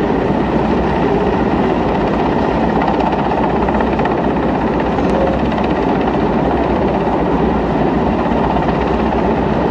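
Large helicopter hovering low overhead, its rotor beating in a steady, loud, fast pulse.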